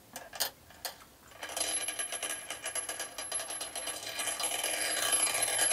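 Ratchet wrench clicking as it tightens a nut down a threaded rod on a battery hold-down bar: a few separate clicks at first, then fast, steady ratcheting from about a second and a half in.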